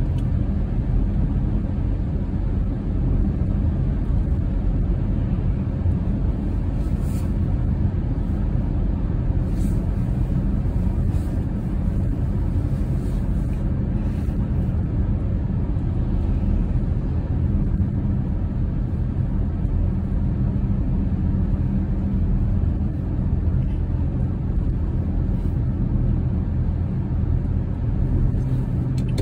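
A car driving on a wet, slushy road: a steady low rumble of engine and tyre noise, heard from inside the car.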